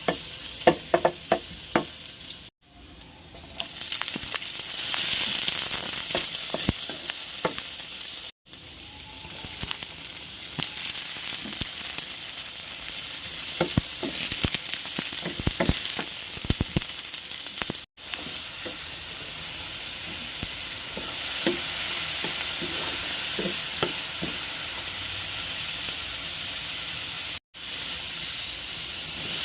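Food sizzling as it fries in a pan, stirred with a utensil that clicks and scrapes against the pan, in clusters near the start and around the middle. The sizzle drops out abruptly to silence four times.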